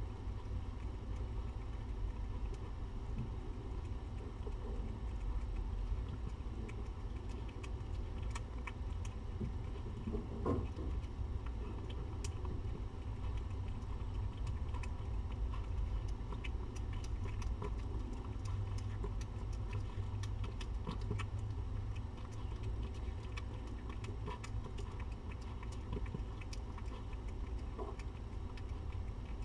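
Cat eating from a metal bowl: small, irregular clicks and ticks of chewing and of food against the bowl, coming thicker in the second half, over a steady low hum.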